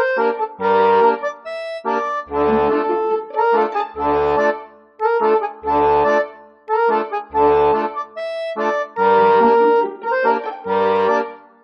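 Background music: an instrumental tune of short repeated phrases with a regular bass note under each.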